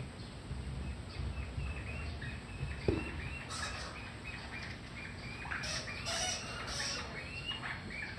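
Small birds chirping: a rapid run of short high calls that grows busier about halfway through. A single dull knock sounds about three seconds in.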